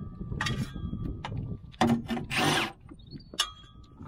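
Tools scraping and knocking on the underside of a van: a few short scrapes, the loudest a rasping scrape lasting about half a second around two and a half seconds in, then a sharp click.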